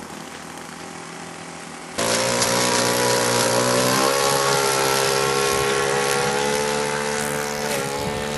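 RC float plane's motor and propeller running at high power during its takeoff run across the water, a steady pitched drone that gets much louder about two seconds in.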